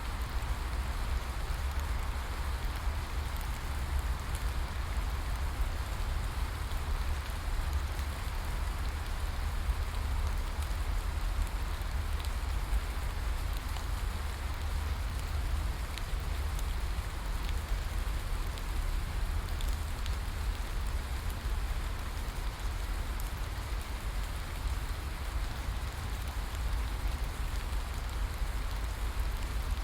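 Steady rain falling, an even hiss with faint scattered drop ticks and a constant low rumble underneath.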